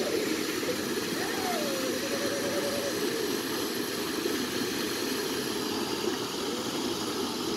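Shallow stream running steadily over stones, an even rushing of water around wading feet.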